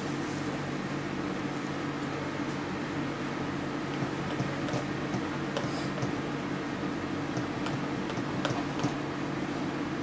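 Steady mechanical hum of a room appliance, with a few faint light clicks in the second half.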